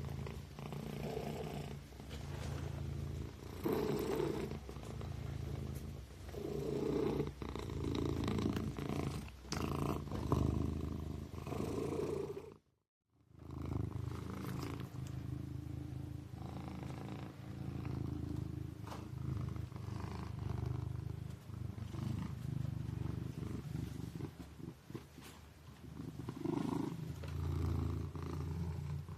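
Kitten purring, a low rumble that swells and fades in a slow rhythm with its breaths. The sound cuts out completely for about a second near the middle.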